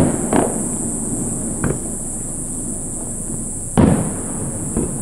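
Aerial fireworks shells bursting with booms that trail off in echo: one about half a second in, a lighter one near 1.7 seconds, the loudest just before four seconds and a small one near the end.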